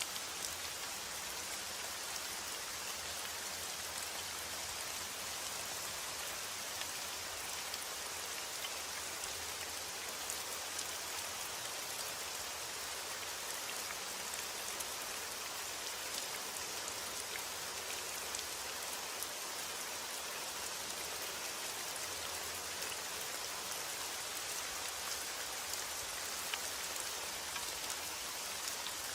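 Steady rain falling, a constant hiss made up of many fine patters of drops.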